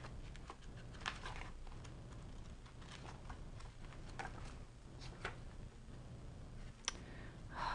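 Thin paper diary pages in a ring-bound Filofax organizer being turned by hand: soft, separate rustles and flicks, several page turns with short gaps between them.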